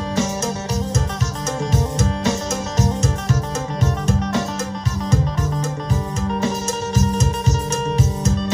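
Thai phin (plucked lute) music with a steady drum beat, played back through a Tronsmart Halo 110 Bluetooth party speaker.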